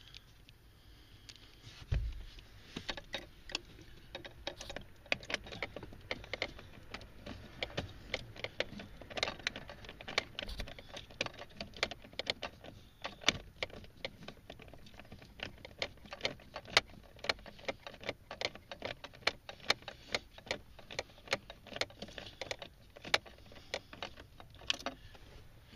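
Irregular small metallic clicks and clinks as the two 12 mm nuts are run onto the mounting studs of a replacement drive-by-wire accelerator pedal assembly and snugged up, with a low bump about two seconds in.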